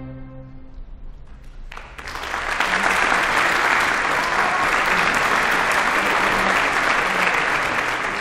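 The last held chord of a string orchestra dies away, and after a short pause the audience breaks into applause about two seconds in, which goes on steadily.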